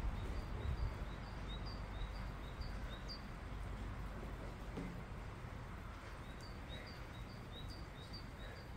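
A small bird chirping over and over in short, high calls, a little more than two a second, stopping for a few seconds midway and then starting again, over a low steady background rumble.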